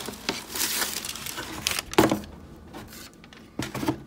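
Tissue paper rustling and crinkling as a hand digs through a shoebox, with a sharp knock about two seconds in and a few soft taps near the end.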